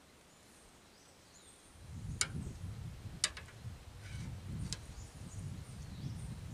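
Quiet outdoor background: a low, uneven wind rumble on the microphone starting about two seconds in, three or four sharp ticks, and faint bird chirps.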